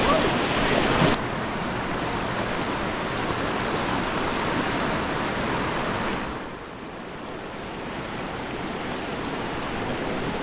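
River rapids rushing, a steady whitewater hiss. The hiss drops abruptly about a second in and is quieter for a stretch past the middle.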